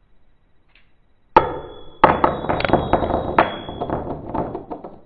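A coin dropped onto a tabletop lands with a sharp, ringing clink; a second strike follows about half a second later. It then spins and wobbles on its edge in a fast, rattling clatter for about three seconds before it settles flat.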